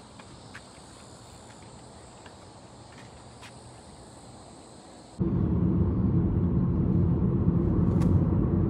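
Insects chirring steadily at a high pitch, with a few faint ticks. About five seconds in, the sound cuts abruptly to a loud, steady, low vehicle rumble.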